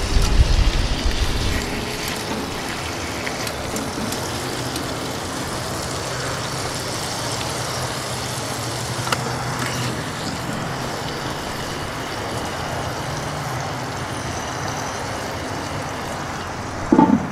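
Wind buffeting the microphone for the first second or two, then a steady hiss with a low hum underneath. A short clank comes near the end as the cast-iron Dutch oven lid is set down.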